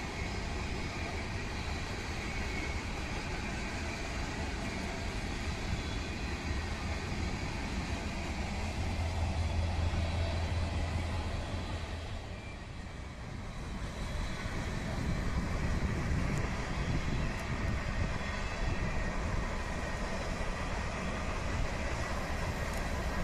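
Freight train of tank cars and covered hoppers rolling past, a steady rumble of wheels on rail. The sound dips briefly about thirteen seconds in, then comes back with another passing train.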